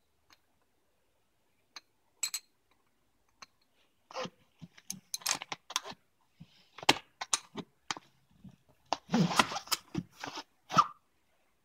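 Scattered clicks, light clinks and handling knocks, sparse at first and coming thicker in the second half, with near-quiet gaps between them.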